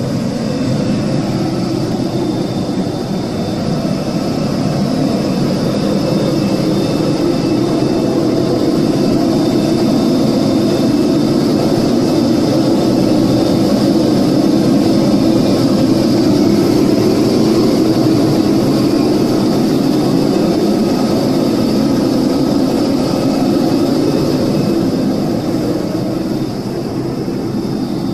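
Jet airliner's engine running, heard inside the cabin as a steady loud rush with a high whine over it, swelling through the middle and easing toward the end. The engine has been struck by a firework and is throwing sparks.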